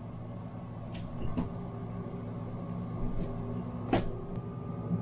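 Steady machine hum in a small boat cabin, with a few knocks and a sharp clack about four seconds in as the cabin door is opened and someone steps in with gear.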